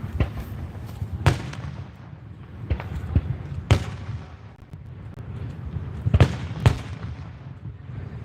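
Aerial fireworks shells bursting: about seven sharp booms at irregular intervals, two of them close together about six seconds in, over a low rumble and echo between bursts.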